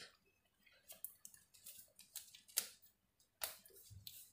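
Faint, irregular clicks and taps from a laptop being worked, eight or so scattered through, the loudest about two and a half and three and a half seconds in.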